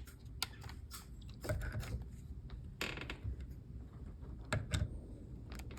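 Scattered faint clicks and light taps of metal door-lock hardware and screws being handled and fitted.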